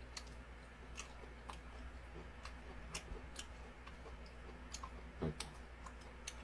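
Faint eating sounds as a man eats ramen with chopsticks: quiet chewing with a dozen or so scattered sharp clicks, and a soft thump a little over five seconds in.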